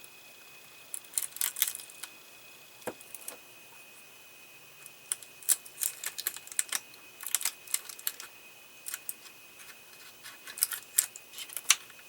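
Scattered small clicks and taps of hands working on a plastic scale model's wiring, pulling Scotch tape up off the wires.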